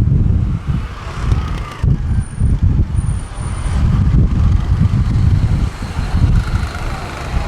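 Jet airliner engines running at takeoff power, heard as a heavy rumble, with the jet blast buffeting the microphone in uneven gusts.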